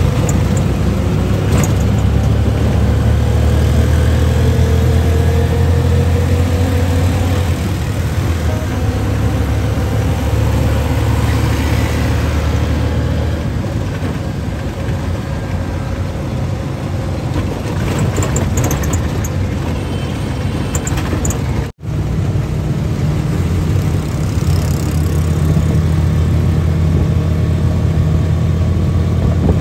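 Engine and road noise heard from inside a moving vehicle in city traffic: a steady low drone, with the engine's pitch rising and falling. The sound drops out for an instant about three-quarters of the way through.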